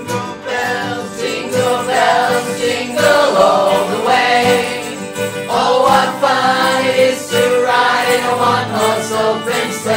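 A group of voices singing a Christmas song together, with acoustic guitars strummed and a violin playing along.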